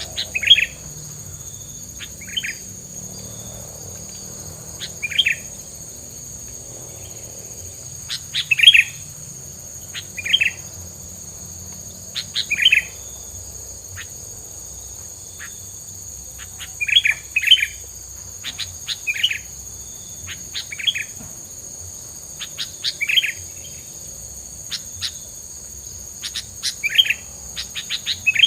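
A small songbird, the bird keepers' 'tilang', giving short sharp chirps every second or two, some in quick runs of several, over a steady high insect-like drone. This is a tutor recording played to caged birds for them to copy.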